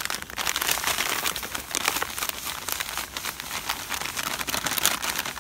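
Fine dry carp groundbait being poured from a plastic bag into a plastic bowl: a steady rustling hiss of the crumb, mixed with the crinkle and crackle of the bag being handled.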